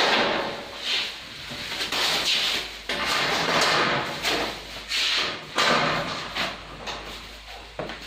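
Thin sheet-metal shelving panels scraping and sliding against steel shelving frames as they are handled and fitted. The sound comes in several long rasping strokes with a few knocks between them.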